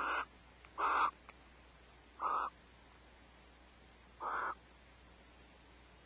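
Barn owl giving short rasping calls, four in a row at uneven gaps of one to two seconds.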